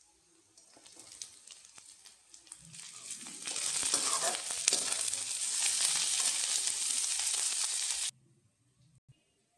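Food frying in a hot pan: a faint crackle that builds over a few seconds into a loud, steady sizzle, which cuts off suddenly near the end.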